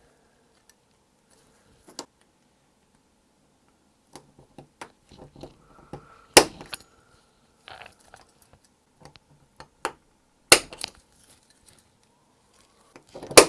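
Small clicks and taps of a die-cast toy car base and its axles and wheels being handled, with three sharp snaps of a spring-loaded punch, which the restorer calls his little impact driver, closing the axle crimp tabs.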